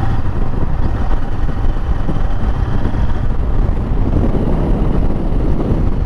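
Wind rushing over the microphone of a moving motorcycle, a steady low rumble, with the Royal Enfield Interceptor 650's parallel-twin engine running underneath at cruising speed.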